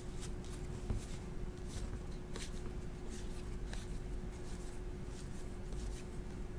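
Faint rustling and light ticks of glossy baseball cards sliding and flicking against each other as a stack is sorted through by hand, over a steady low hum.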